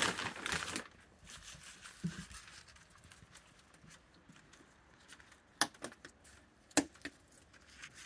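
Clothing rustling during the first second, then faint handling rustles. Near the end come two sharp, loud clicks, a little over a second apart.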